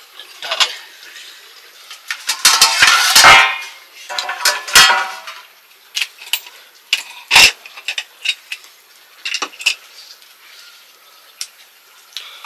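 Cooking pots and utensils being handled, with a burst of clattering about two to four seconds in, then scattered single clinks and knocks.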